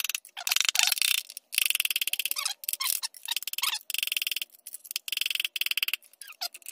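Rapid metal tapping and scraping as a piston and connecting rod are knocked out of the bore of a 5.3 L LM7 V8 block with a hammer. It comes in several runs of about a second each.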